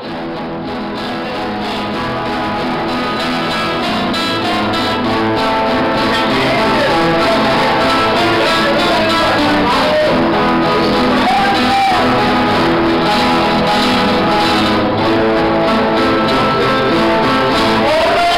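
A small ensemble of acoustic guitars playing a song together, strummed and picked. The sound swells over the first few seconds and then holds steady.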